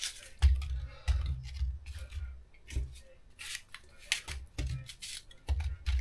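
Kitchen knife cutting chunks off raw apple held in the hand: an irregular run of short, crisp cuts, each with a dull low thud underneath.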